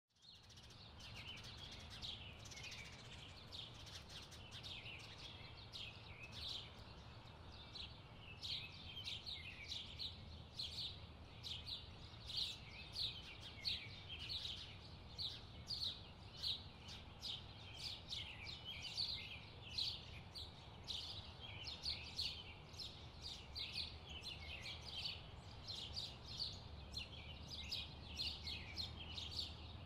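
Small birds chirping in a steady, busy chorus of rapid short chirps, several a second, over a faint low hum.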